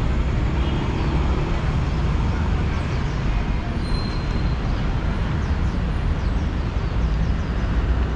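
Steady city traffic rumble from a nearby street, with faint high chirps now and then.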